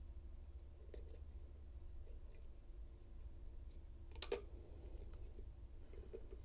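KW1 Lishi 2-in-1 pick working the pin stacks of a padlock cylinder: faint, scattered metallic clicks and ticks, with one sharper double click a little past four seconds in.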